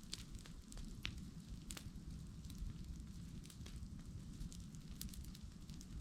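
Bonfire of dry grass and cut branches burning, with irregular sharp crackles scattered over a steady low rumble.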